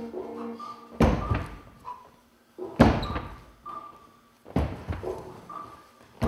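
Heavy wooden thuds of an acrobatic teeterboard slamming onto the stage as acrobats are launched and land, three big hits about two seconds apart, each echoing in a large hall.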